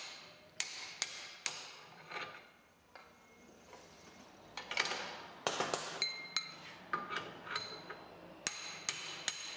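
Sharp steel-on-steel taps and clinks, some with a short metallic ring, as the shift rails are driven and slid out of a Borg-Warner T18 transmission's steel top cover. A few knocks, a pause, then a quicker run of clinks near the end.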